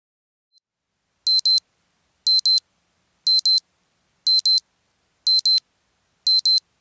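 Timer alarm beeping in quick double beeps, one pair about every second, six pairs in all, high-pitched, starting about a second in: the four-minute egg countdown has run out.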